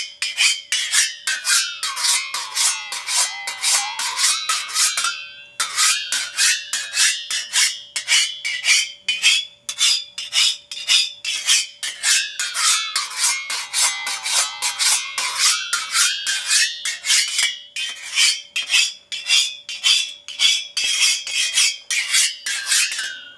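Singing saw: a hand saw's steel blade, bent into a curve, struck rapidly with a beater at about four strikes a second, each strike ringing a metallic tone. Twice the pitch slides down and back up as the bend of the blade is changed, with a brief break about five seconds in and another near the end.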